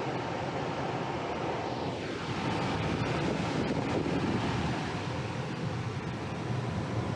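Lennox 80% gas furnace running a heating cycle, its blower motor and inducer motor going with a steady rush of air and a faint hum.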